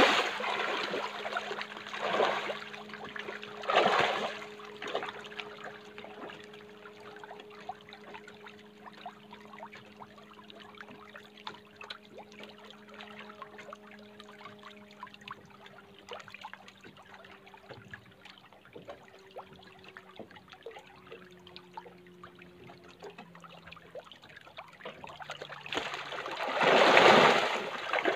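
Water splashing and sloshing close by, with loud surges about two and four seconds in and again near the end, and a quieter watery trickle in between.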